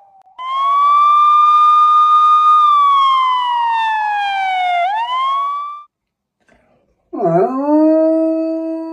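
A siren wailing: its pitch holds, slides down, swoops back up and then cuts off. About a second later a coonhound starts one long, steady howl in answer to it.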